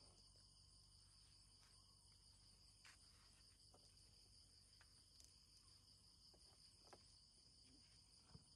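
Near silence: faint steady high chirring of night insects such as crickets, with a few faint light taps.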